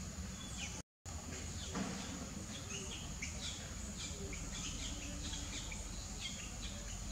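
Outdoor ambience: a steady high-pitched whine with many short high chirps scattered through it and a low rumble beneath. The sound cuts out completely for a moment about a second in, and there is a single soft knock just after.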